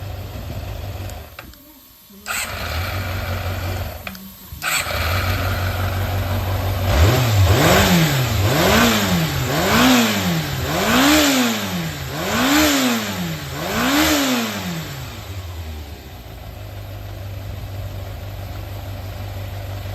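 Yamaha XJR400 (4HM) air-cooled inline-four engine idling, revved six times in quick even blips from about seven seconds in, then settling back to a steady idle. Its sound drops away briefly twice near the start. The seller describes it as running strongly with no abnormal noise.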